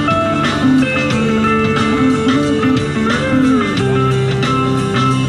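Background music led by electric guitar, held notes bending in pitch over a steady beat.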